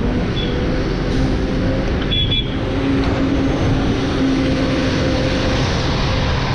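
A motor vehicle engine running steadily close by, its pitch drifting slightly upward, over a dense low rumble.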